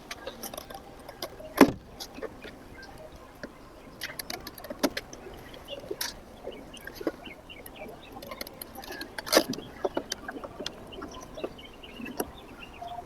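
Irregular clicks, taps and knocks of hand tools and parts being handled on an RV roof, with two louder knocks, one about a second and a half in and one near nine seconds.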